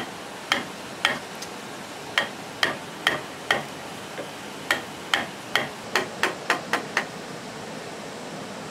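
Hammer striking in short runs of irregular, sharp blows with a slight metallic ring, about two a second, stopping about seven seconds in.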